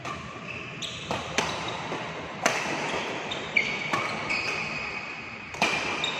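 Badminton rackets striking a shuttlecock back and forth in a rally, a sharp hit about every second and a half. High ringing, squeaky tones hang between the hits, echoing in a hall.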